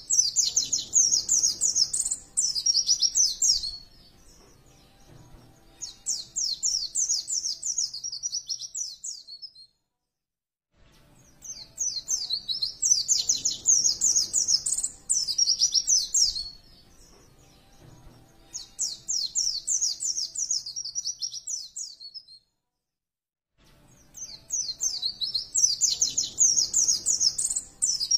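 White-eye (pleci) song: rapid, high chattering phrases in alternating louder and softer bouts. The same sequence repeats as a loop, broken twice by about a second of dead silence.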